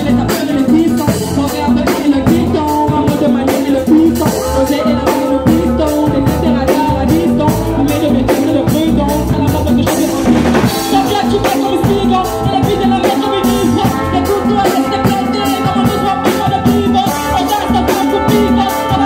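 Live band playing: drum kit and congas keeping a steady beat, with brass (trumpet and trombone) and voices over it.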